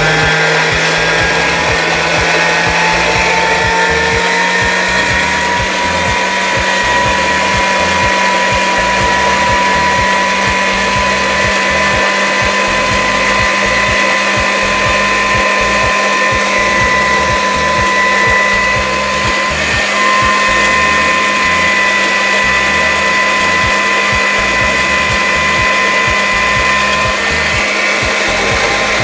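Electric mixer beating egg whites to stiff peaks, its motor running steadily with a whine that rises a little in pitch over the first few seconds and then holds.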